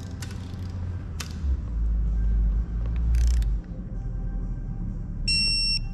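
Digital torque wrench beeping briefly near the end as it reaches its set torque on a bottom-end bolt. A few light tool clicks come earlier, and background music with a low hum runs underneath.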